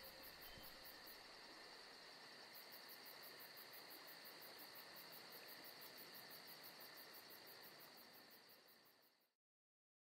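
Near silence: a faint steady hiss that fades out and cuts to complete silence about nine seconds in.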